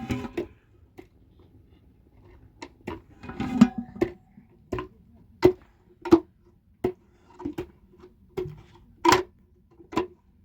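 Repeated sharp knocks, about one every two-thirds of a second, each with a short ring, with a denser clatter around the middle.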